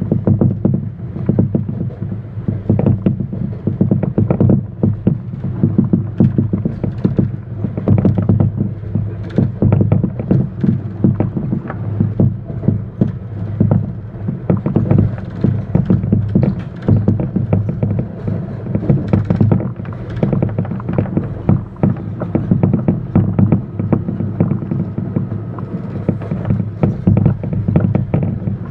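TTC subway train running on open-air track: a steady low rumble of the wheels and running gear with frequent irregular clacks and knocks as the wheels cross rail joints and switches.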